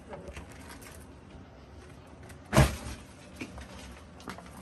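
A cardboard booster box being handled on a tabletop: faint light clicks and rustles, with one dull thump about halfway through.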